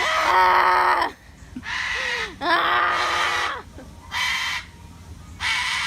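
An animal giving a series of loud, harsh calls: two long ones of about a second each, then two shorter ones.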